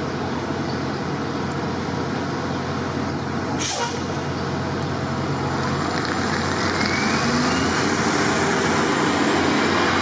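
City street traffic with a large vehicle's engine idling and a short sharp hiss about three and a half seconds in. From about six seconds a vehicle's pitch rises as it speeds up, and the traffic grows louder.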